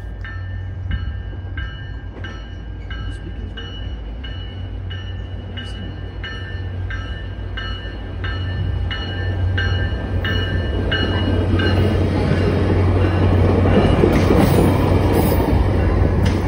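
Tri-Rail commuter train approaching and pulling into the station, its rumbling running noise growing steadily louder over the second half. A bell rings steadily, about one and a half strokes a second, through the first two-thirds, then is lost under the train.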